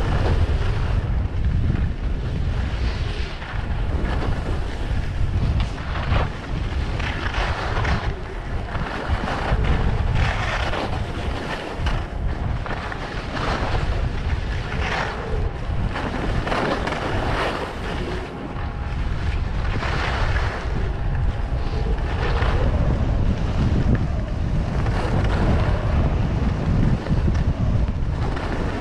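Wind rushing over the microphone of a skier moving at speed, a constant low rumble. Over it, the hiss and scrape of skis on packed snow swells and fades about every second and a half as the skier links turns.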